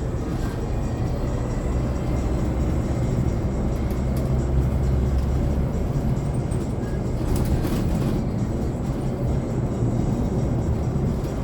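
Cabin noise inside a Hyundai Elec City electric city bus on the move: a steady low rumble of road and tyre noise. A few brief knocks or rattles come about seven to eight seconds in.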